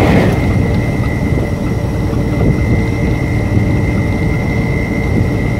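Cargo truck cruising on the highway, heard from inside the cab: a steady low drone of engine and tyre noise with a thin, steady high whine over it.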